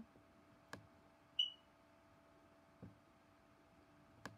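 Computer mouse clicking a few times, the last two close together near the end. A single short high beep sounds about a second and a half in, over a faint steady hum.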